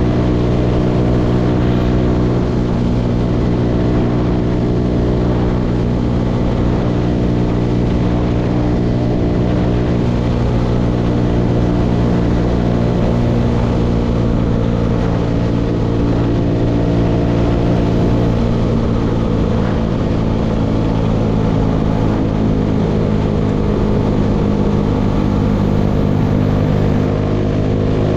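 Motorcycle engine running steadily at an even cruising speed while being ridden.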